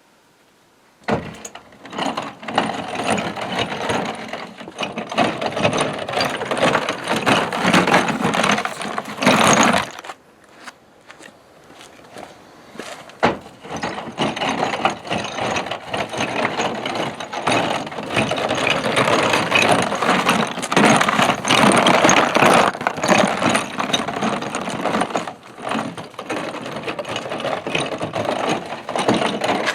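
Wire wheel scouring rust off cast iron parts: a dense, rasping scratch of wire bristles on metal, with short pauses about a second in and again around the ten-second mark.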